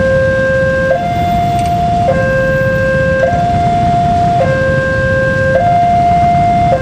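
Railway level crossing warning alarm sounding a two-tone electronic signal, switching between a lower and a higher pitch about once a second, over a low rumble of traffic.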